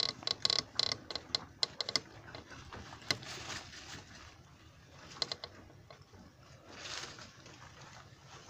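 Rabbits chewing and tugging dry grass and hay, a string of crisp crunching clicks with rustling. The clicks come thick and fast in the first two seconds, then only a few at a time.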